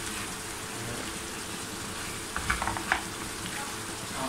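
Raw mango slices and lumps of jaggery sizzling in a frying pan as they are stirred with a spatula, with a few short clicks and scrapes of the spatula against the pan a little past halfway.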